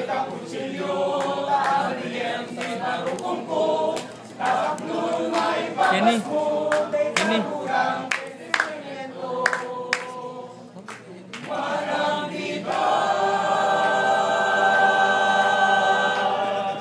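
A group of young men and women singing together a cappella, a song in a Luzon native language, with a few sharp clicks midway; near the end they hold one long chord for a few seconds.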